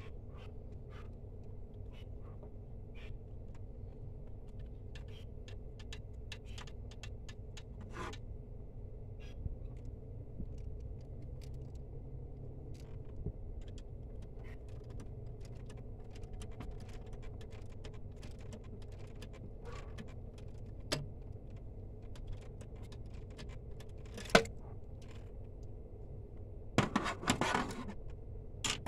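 Faint, scattered light metal clicks and clinks of hand tools being worked, with a sharper clink about three-quarters of the way through and a short clatter near the end, over a steady low hum.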